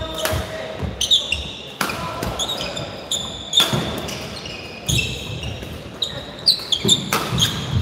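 Badminton doubles rally: sharp racket strikes on the shuttlecock about once a second, with shoes squeaking on the court floor between shots.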